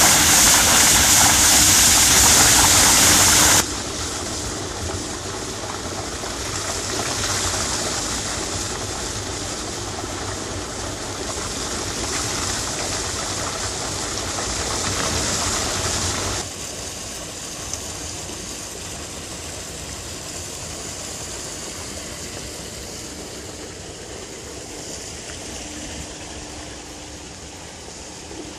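Used processing water pouring onto the moving screen belt of a waste water separation screen, a loud steady rush of water as the screen strains out the organic material. A few seconds in the rush drops to a quieter mix of running water and the machine running, and drops again about halfway through.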